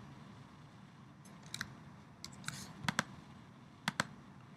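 Computer mouse and keyboard clicks: several short, sharp clicks, some in quick pairs, as objects are selected and keys pressed.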